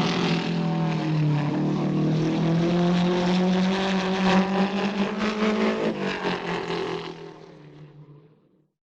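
An engine running at a steady pitch that dips and rises slightly, then fades away over the last second or two.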